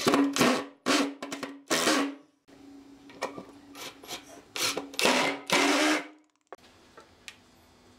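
Cordless impact driver driving long screws into a softwood board, hammering in short bursts with its motor whirring between them; it stops about six seconds in.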